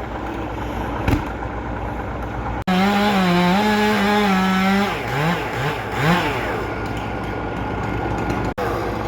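Two-stroke chainsaw running at high revs. Its pitch wavers and dips as it works, then it revs up and down a few times. The sound breaks off abruptly twice where clips are joined.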